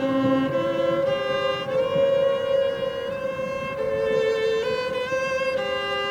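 Outdoor tornado warning siren holding one steady tone, with string music over it playing a melody of held notes that step up and down in pitch.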